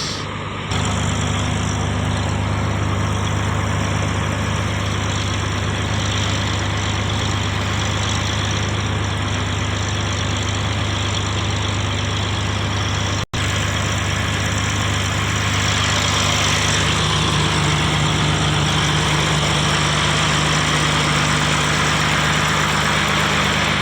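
Diesel engine of a drainage water pump running steadily, with a brief cut-out about halfway through.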